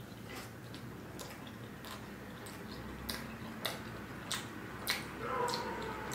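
Close-miked chewing of a mouthful of butter naan with paneer tikka masala: wet mouth clicks and smacks at an irregular pace, growing louder and more frequent in the second half.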